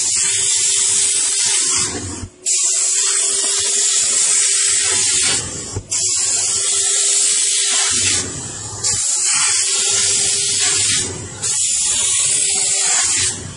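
Steam car-wash machine's nozzle jetting steam onto a fabric car seat: a loud, steady hiss that stops briefly about every three seconds, with a steady hum underneath.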